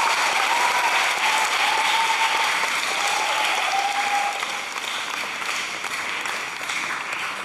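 Audience applause, dense and steady, with a few high cheers over it for the first few seconds, tapering off near the end.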